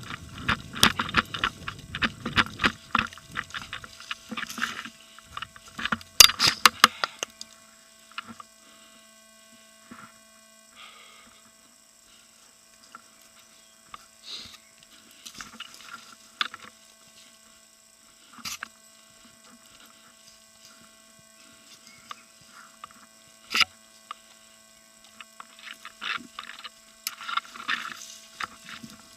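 Crackling and rustling for the first few seconds, then a quick run of sharp clicks about six seconds in, followed by scattered single sharp clicks, all over a steady electrical hum.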